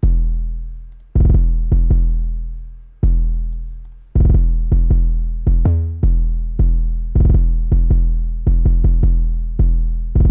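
An 808 bass line from a trap beat playing on its own: deep sub-bass notes, each struck hard and fading slowly, in a syncopated pattern. One short note about halfway through sits at a different pitch, and the hits come in quick repeats near the end.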